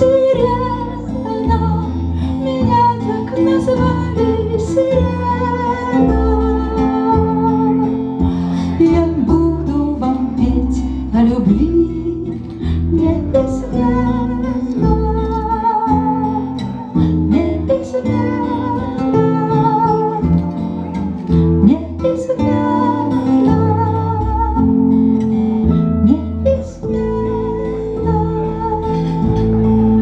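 Live acoustic band music: acoustic guitar, a second guitar and a double bass playing an instrumental passage.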